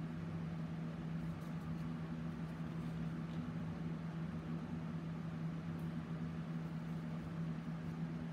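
A steady low hum, like a machine or appliance running, over a constant background hiss, with a few faint light ticks.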